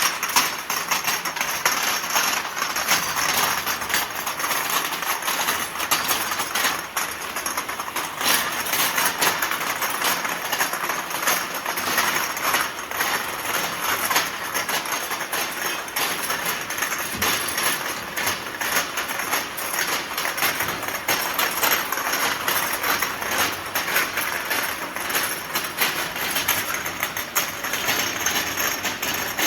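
Ultrasonic vial washing machine running: a steady, hissing mechanical noise with frequent irregular clicks and clinks throughout, as glass vials are carried through the washing stages.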